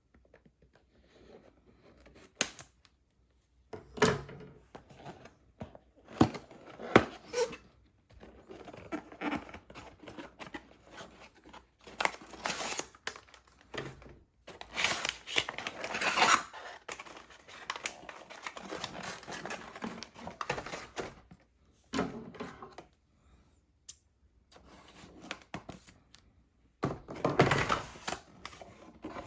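Hands unpacking and handling a plastic toy playset: scattered clicks and knocks of small plastic pieces, with longer stretches of rustling and tearing packaging.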